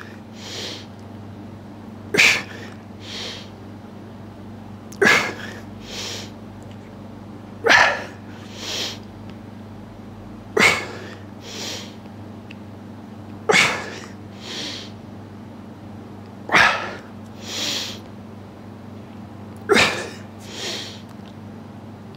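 A man breathing hard through seated dumbbell hammer-curl reps. Each lift brings a sharp, forceful exhale, followed about a second later by a softer breath in, and the pair comes about every three seconds, seven times.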